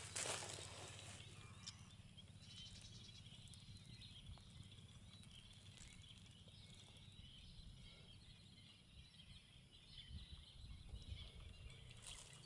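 Near silence: faint outdoor ambience with scattered distant bird calls over a low rumble.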